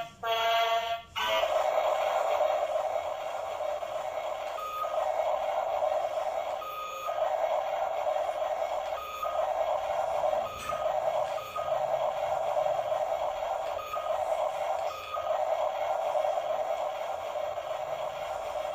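Battery-operated RC loader-bulldozer toy's built-in electronic sound effects through its small speaker. A buzzing tone stops about a second in, then a steady noise continues, broken by brief gaps every one to two seconds.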